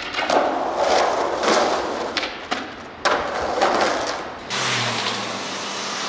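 Skateboard wheels rolling on rough concrete, with sharp clacks and knocks of the board against the ground. About four and a half seconds in, a steadier noise with a low hum takes over.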